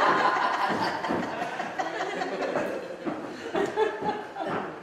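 Theatre audience laughing, the laughter fading over the first couple of seconds, with a few scattered voices afterwards.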